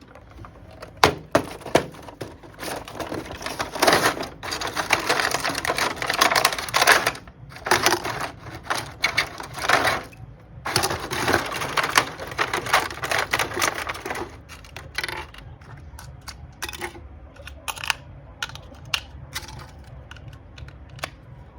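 Toy packaging being handled and opened: crinkling plastic and cardboard with many sharp clicks and taps, busiest for the first two-thirds, then sparser taps near the end.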